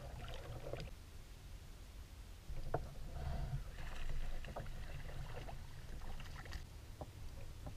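Water lapping and splashing around a Shadowcaster kayak, with scattered knocks on the hull and a steady low rumble underneath. The level steps up about two and a half seconds in.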